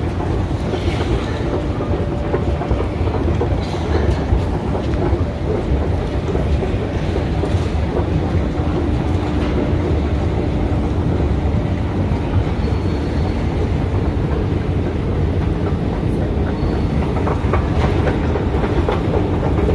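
Escalator running: a steady, loud rumble with a rattle of the moving steps, heard while riding on it.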